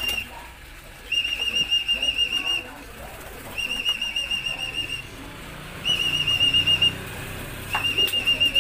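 A trilling whistle blown in about four long blasts, a second or so apart, each holding one warbling pitch. It is a pigeon keeper's call to bring a returning racing pigeon down into the loft.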